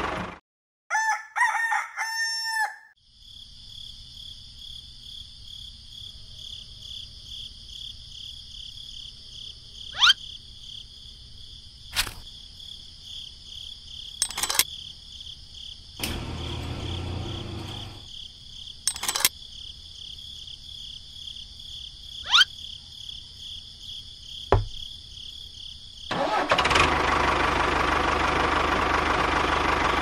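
A rooster crows once near the start. Then a steady high chirring like crickets runs over a low hum, broken by several sharp clicks. About four seconds before the end a loud engine-like running noise starts.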